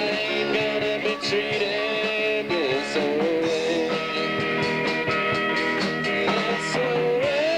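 Live rock band playing with electric guitars and a drum kit, a lead line holding notes and bending them in pitch twice.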